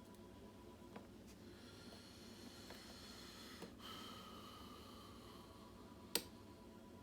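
Lock picking on a Kwikset-keyway pin tumbler lock: a hook pick setting pins, with a few faint clicks and one sharp, louder click about six seconds in.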